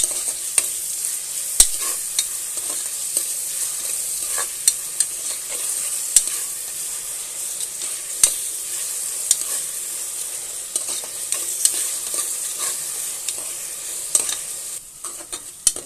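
Chopped onions and green chillies sizzling in hot oil in a pressure cooker as they fry. They are being stirred, and the utensil clicks and knocks against the pot every second or so. The sizzle drops off briefly near the end.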